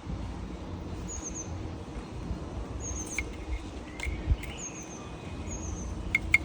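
Several short, high chirps of a small bird, a second or so apart, over a low steady background hum, with a couple of faint clicks.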